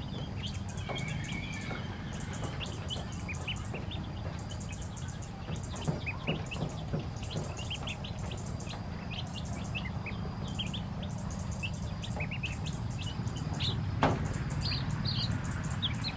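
Many ducklings and chicks peeping, a steady stream of short high chirps over a low background rumble. A single sharp knock sounds near the end.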